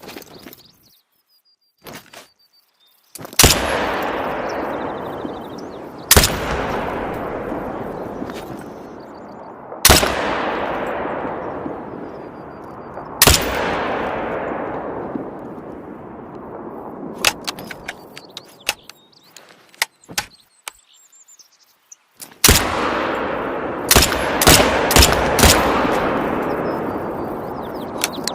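AR-15 rifle firing: four single shots a few seconds apart, each followed by a long echo that dies away, then a quick string of shots about two thirds of the way through. Light clicks are heard between the shots.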